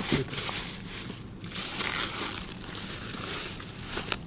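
Thin clear plastic bag of discarded vegetables crinkling and rustling as hands rummage through it and lift it.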